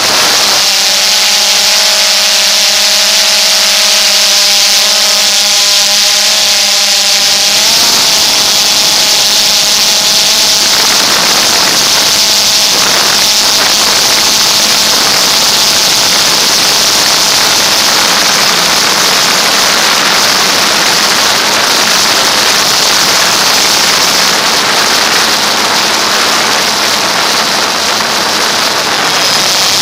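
DJI Phantom 2 quadcopter's motors and propellers whining with a loud, steady hiss, picked up by the camera on the drone itself. Several motor tones hold level for the first few seconds, shift about eight seconds in, then blur into an even rushing whine as the drone climbs.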